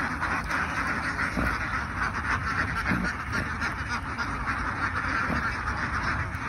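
A large flock of domestic ducks quacking all at once in a dense, unbroken chorus.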